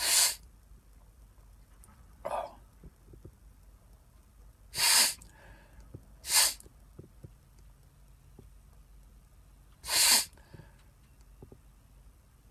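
Sharp nasal sniffs of cayenne pepper from a cotton swab, meant to set off another sneeze: four loud, short sniffs several seconds apart, with a fainter one about two seconds in.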